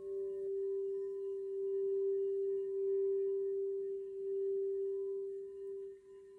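Crystal singing bowl sounding one steady low tone that swells and dips in loudness; a second, higher bowl tone stops about half a second in.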